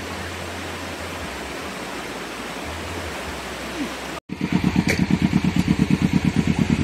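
Steady rushing of flowing water. About four seconds in, an abrupt cut gives way to a louder small engine running with a fast, even pulse of about a dozen beats a second.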